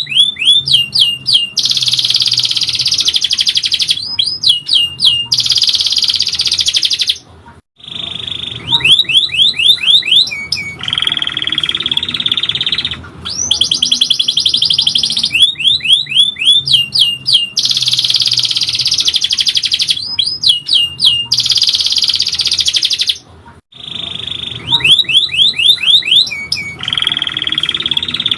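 Domestic canary singing a long, loud song of rapid high-pitched trills and rolls, phrase after phrase, breaking off briefly about seven seconds in and again near the end.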